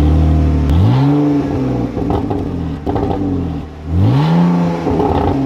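Car engine idling and revving twice, the pitch rising and falling back with each rev, the second about three seconds after the first.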